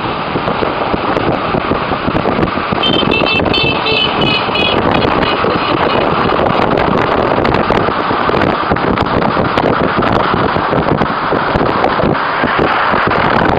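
Wind noise on the microphone and road noise from riding along a road in traffic. About three seconds in comes a run of short, high horn beeps lasting a couple of seconds.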